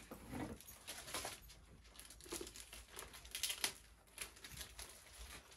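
Packaging crinkling and rustling as a wrapped package is handled and cut open with a knife, with a sharper tearing rustle about three and a half seconds in.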